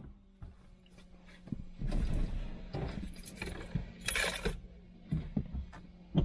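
Rustling and small clicks from a person handling things in a car's driver seat, over a steady low hum.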